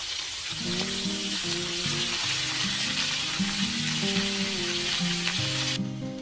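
Raw squid pieces with chilli and garlic sizzling hard in a hot wok. The sizzle stops abruptly near the end.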